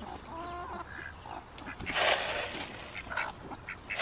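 A flock of chickens clucking and calling while feed is tossed to them, with a brief rustling burst about two seconds in.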